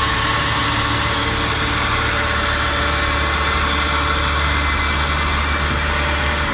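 Heavy vehicle engine running steadily at a constant speed, a low hum with a rushing hiss over it.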